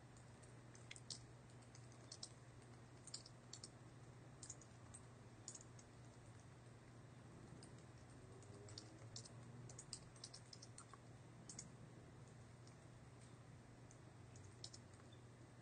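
Faint typing on a computer keyboard: irregular key clicks, some in quick runs, over a low steady hum.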